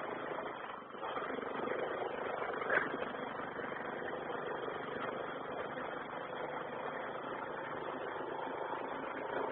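Steady vehicle engine noise with faint voices, and one sharp knock a little under three seconds in.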